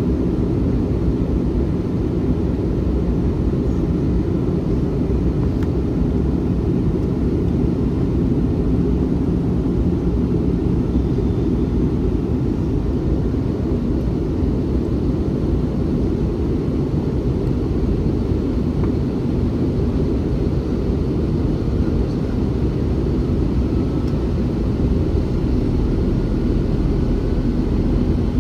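Steady low cabin roar of an Airbus A321 in flight, heard from inside the passenger cabin: engine and airflow noise that holds constant with no change in pitch or level.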